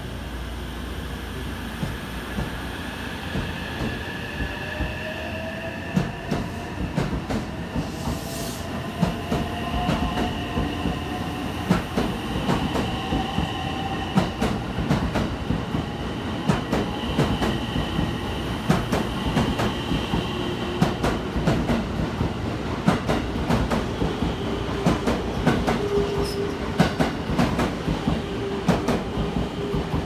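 A JR West 225-series and 223-series 2000-subseries electric train pulling away and gathering speed. The traction motor whine rises in pitch, and the wheel clicks over the rail joints come faster and faster as the cars pass.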